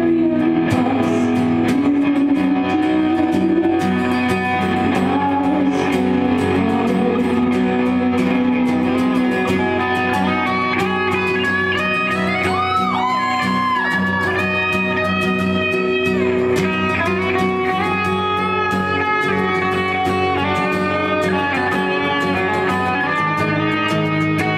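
Live electric guitar playing a lead line over a strummed acoustic guitar, with bent notes gliding up and down near the middle.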